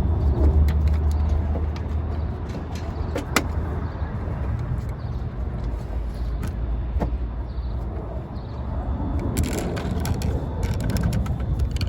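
A steady low rumble, with a few light clicks and taps scattered through it and a cluster of ticks near the end.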